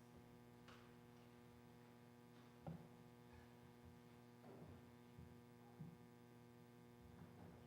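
Near silence: a steady electrical hum from the sound system, with a few faint soft knocks.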